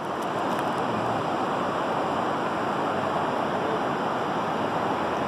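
Steady rush of fast-flowing river water, an even hiss with no breaks.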